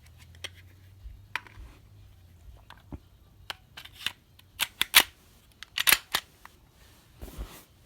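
Sharp metallic clicks and clacks of a Glock 23 pistol being handled as the Alpha Wolf 9mm conversion barrel is fitted into the slide and the pistol is put back together. The loudest clacks come in a cluster about five to six seconds in.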